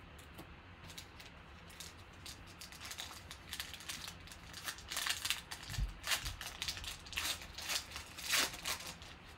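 The wrapper of a 2018 Panini Select Football trading-card pack crinkling as it is opened by hand. It is a run of crackles that builds up from about a third of the way in and is loudest near the end.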